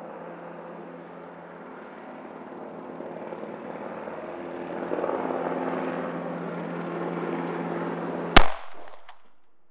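A steady engine drone that slowly grows louder, then a single sharp M9 9 mm pistol shot about eight seconds in.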